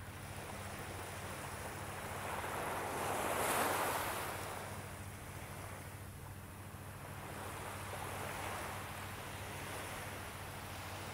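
Small waves washing up onto a sandy beach and drawing back, one wash swelling loudest about three and a half seconds in, over a faint steady low hum.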